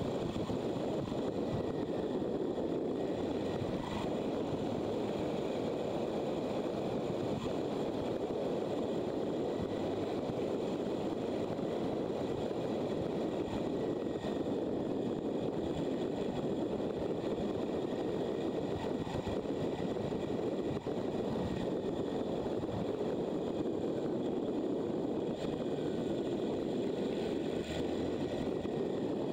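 Steady rush of wind over the microphone mixed with engine and road noise from a motorcycle riding at a constant pace.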